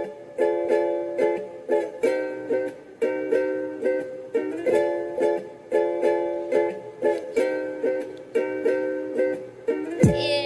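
Background music: a light, bouncy tune of plucked-string chords repeating about every half second or so. A swooping sound effect comes in near the end.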